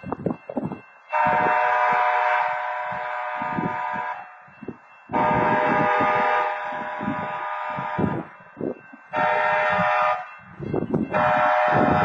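Train horn sounding the grade-crossing warning: two long blasts, a short one, then a final long blast beginning near the end. Each blast is a chord of several steady notes.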